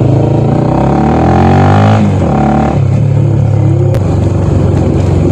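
Honda CB 300's single-cylinder engine running through an aftermarket Fortuna mini sport exhaust. It revs up from about a second in, drops back sharply around two seconds, takes a brief second rev, then runs steady.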